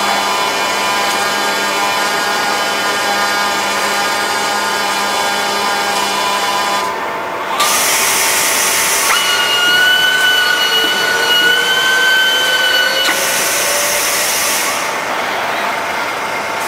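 Kawasaki robotic welding cell running: a steady motor whine for several seconds, then two short bursts of hiss, with a slightly rising whine in between.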